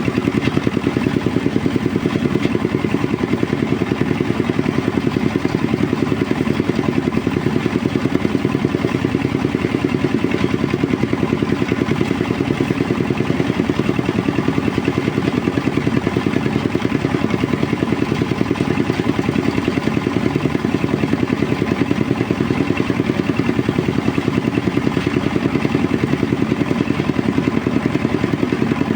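Engine-driven rice threshing machine running steadily, its motor chugging at an even, rapid beat without change.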